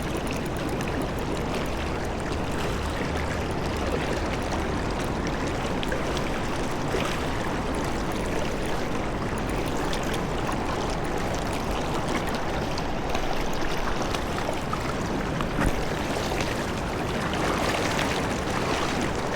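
Steady rush of flowing river water from a Lake Erie tributary.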